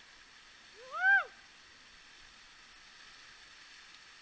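Steady rush of a waterfall, with one short high call about a second in that rises and then falls in pitch.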